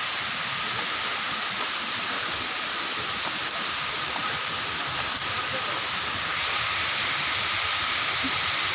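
Steady rushing of the Tumburano waterfall's falling water, an even hiss with no break.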